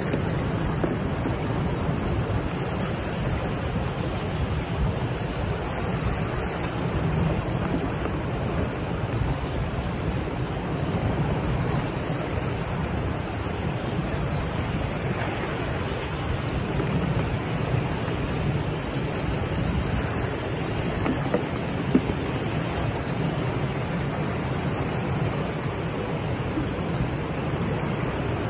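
Steady rush of churning water running along a concrete wall, with some wind noise on the microphone. Two small sharp ticks stand out about three-quarters of the way through.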